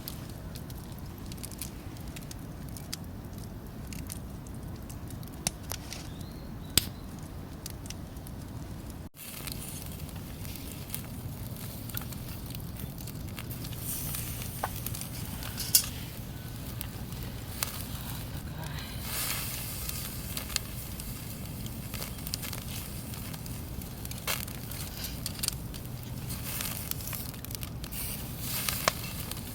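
Campfire crackling, with scattered sharp pops over a steady low rumble. There is a brief break about nine seconds in, and the crackling is busier in the second half.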